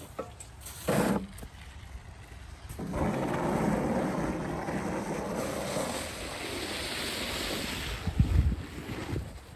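Plastic snow pusher blade on a hand truck scraping heavy wet snow along an asphalt driveway, a steady scraping rush from about three seconds in until about eight. A thump about a second in and a few low thumps near the end.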